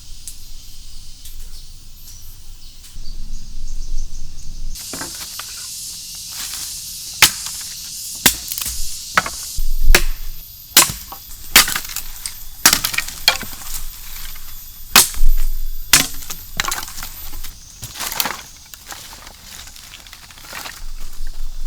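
A run of sharp, irregular knocks and cracks starting about five seconds in, like wood being chopped or snapped, some of them very loud. Under them runs a steady high hiss.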